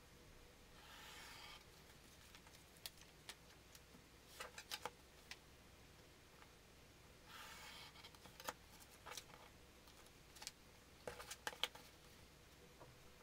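Quiet hobby knife cutting paper along a ruler on a cutting mat: two short scraping strokes, about a second in and about seven seconds in, with scattered light clicks and taps of the blade and ruler between them.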